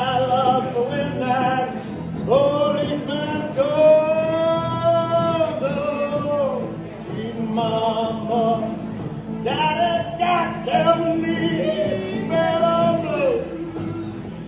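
A male voice sings long held, sliding notes over acoustic guitar accompaniment in a blues tune; no clear lyrics are picked out.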